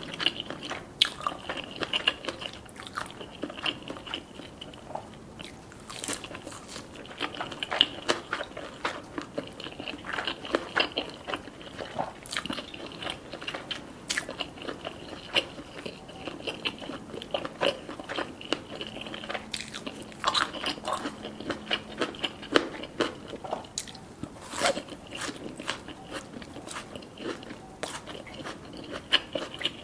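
Close-up eating sounds: crunchy bites into black rice cones filled with spicy chopped scallop, avocado and salmon, then chewing, with irregular crackles and clicks throughout.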